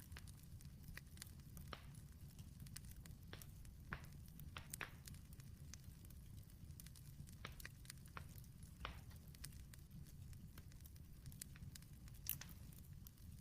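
Campfire crackling faintly: irregular sharp pops and snaps over a low steady rumble, with the loudest pops about four seconds in and near the end.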